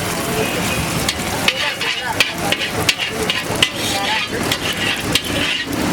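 Metal spatula scraping and knocking on a hot griddle, with irregular clinks several times a second over food sizzling.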